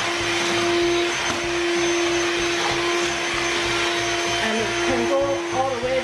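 Philips PowerPro Aqua FC6402 cordless stick vacuum running on its max setting on a tiled floor: a steady hum over the rush of air. The hum dips briefly near the end.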